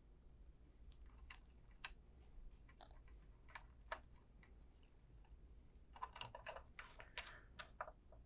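Faint, scattered small clicks and ticks of wire ends being worked into a plug-in AC transformer's screw terminals, with a busier run of small scratchy clicks from about six seconds in.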